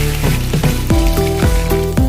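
Background music with a steady beat: a deep bass drum whose pitch drops on each hit, about twice a second, under sustained synth notes.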